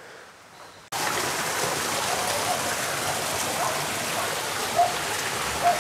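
Rushing water, a steady noise that starts abruptly about a second in.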